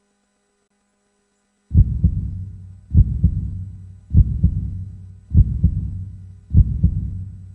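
Heartbeat sound effect: after about a second and a half of silence, a slow, steady heartbeat starts, five low double thumps (lub-dub) a little over a second apart.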